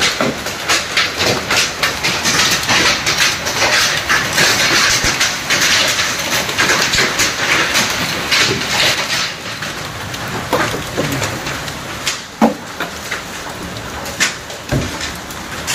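Large hailstones pelting down, a dense clatter of many small impacts over a hiss, heaviest in the first half and easing after about ten seconds. A single sharp knock stands out about twelve seconds in.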